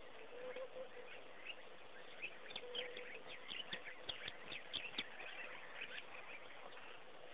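Small birds chirping: a quick, dense run of short, high, falling chirps from about two to six seconds in, over a faint steady hum.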